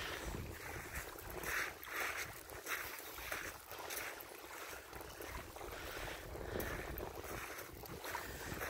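Small waves lapping and splashing irregularly at a pebbly lake shore, with a low wind rumble on the microphone.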